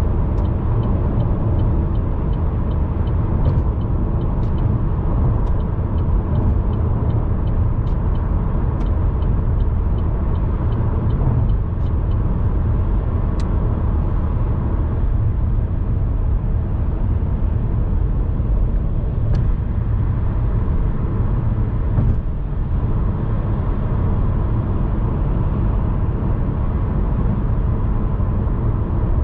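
A car driving along, its steady low road and engine rumble filling the sound. Faint even ticking about twice a second runs through the first dozen seconds, and a few single clicks come later.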